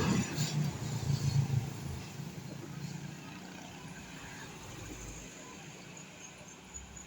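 A road vehicle's engine passing close by, loudest in the first two seconds, then fading into steady background traffic noise.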